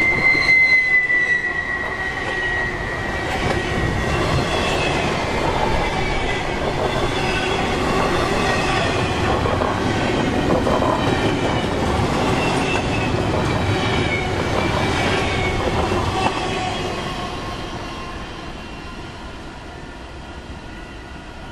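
Double-stack intermodal freight cars rolling past, steel wheels squealing in several thin high tones over the rolling noise. About three quarters of the way through, the noise starts to fade steadily as the end of the train passes and moves away.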